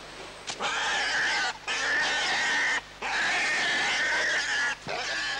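Wild pig caught under the logs of a deadfall trap, squealing: three long squeals with short breaks between them, then a brief one near the end.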